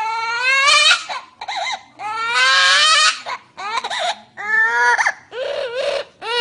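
Parrot mimicking a baby crying: about six loud, wailing cries, some long and some short, each rising and then falling in pitch.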